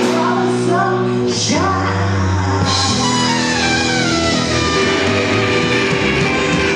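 Live rock band playing loudly, led by electric guitar, with held notes and a sliding drop in pitch about a second and a half in.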